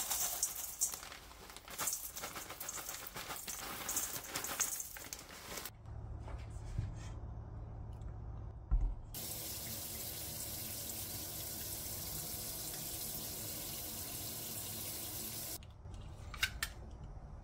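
Kitchen tap running into the sink while abalone are cleaned under it. The water runs unevenly for the first few seconds, then after a thud runs steadily for about six seconds before being shut off, with a few clicks near the end.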